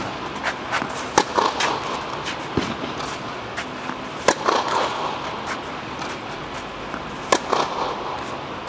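Tennis ball struck hard by a racket about every three seconds, three sharp cracks that echo under an air-dome hall, with fainter knocks of the ball between them.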